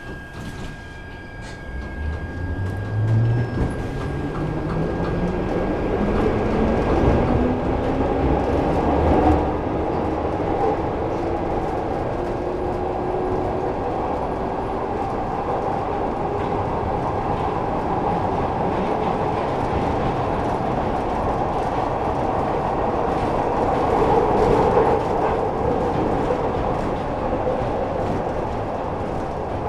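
Glasgow Subway train pulling away and accelerating, its traction motor whine rising steadily in pitch over the first ten seconds or so. It then runs at speed through the tunnel with a steady rumble of wheels on rail.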